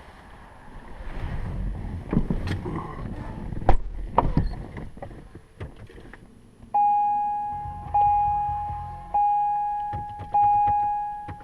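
Rustling with a few knocks and clicks, then from about halfway in, the 2005 Corvette C6's electronic warning chime dinging four times, about once every 1.2 seconds, each ding fading away.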